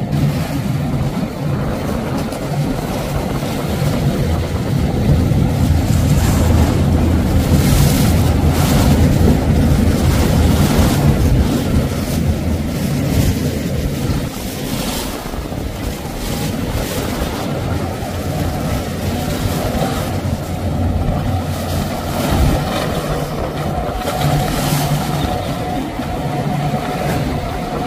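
Outboard engines of center-console boats running at speed, a steady low drone, with the rush and splash of their hulls through choppy water.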